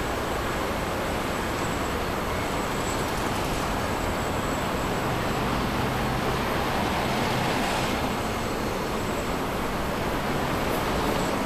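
Steady outdoor road-traffic noise, a continuous wash of sound that swells slightly in the middle.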